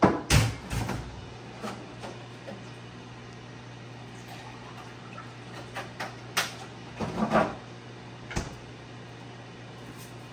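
Refrigerator and freezer doors being opened and shut, with sharp knocks and rattles of items being handled inside. The loudest are at the very start and again about six to eight and a half seconds in, over a steady low hum.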